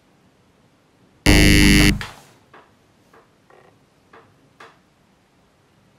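An electronic wrong-answer buzzer: one harsh, loud, steady tone about two-thirds of a second long, starting about a second in, marking an incorrect quiz answer.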